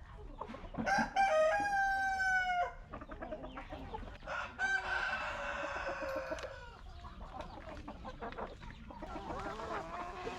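Roosters crowing twice, each crow a long call lasting about two seconds and falling in pitch at the end, the first about a second in and the second near the middle. Hens cluck throughout.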